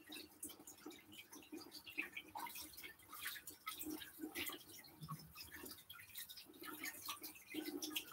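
Cold tap water running faintly and splashing irregularly over a plastic bag of hot plantain fufu in a kitchen sink.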